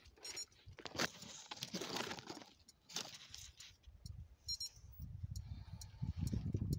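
Leaves rustling and crackling close to the microphone, with scattered sharp clicks, then low rumbling handling noise near the end.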